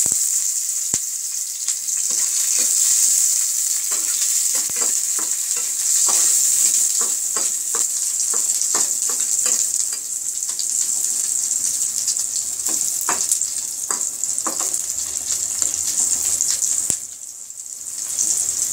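Dried ribbonfish (churi shutki) frying in hot mustard oil in a pan: a steady sizzle full of quick pops and crackles. It goes briefly quieter for about a second near the end, then resumes.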